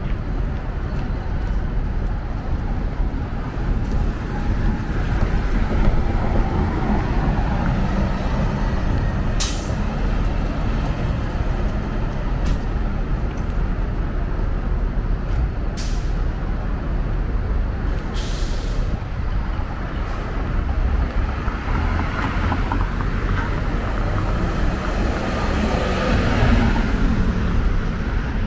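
Downtown street traffic: a steady low rumble of vehicle engines and tyres. It is broken by three short, high hisses of a city bus's air brakes, about ten, sixteen and eighteen seconds in, and a vehicle passes near the end.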